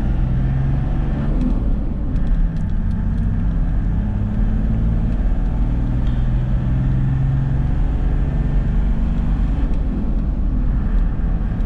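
Toyota Land Cruiser LX driving at steady speed on a paved road, heard inside the cabin: a steady low drone of engine and tyre noise, the engine's hum shifting slightly in pitch.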